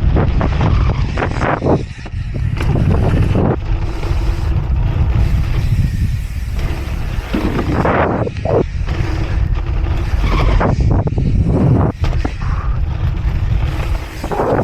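Wind buffeting the microphone and tyre rumble from a dirt-jump bike ridden over dirt, with a few knocks.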